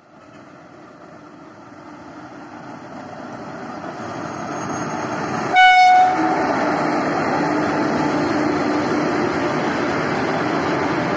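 WAP4 electric locomotive hauling an express train past a station platform. The train noise grows steadily as it approaches. The locomotive's horn gives one short blast about halfway through, and then the locomotive and coaches run past with a dense rail rumble and clatter.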